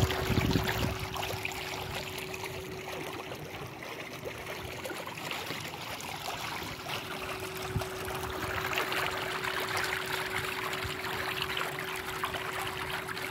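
Swimming-pool water trickling and lapping, with a steady hum underneath. Wind buffets the microphone briefly at the start.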